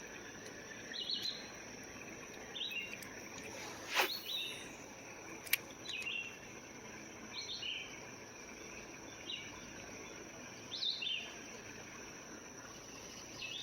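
A steady high insect drone, with a bird repeating a short descending call every second or two. Two sharp clicks come near the middle.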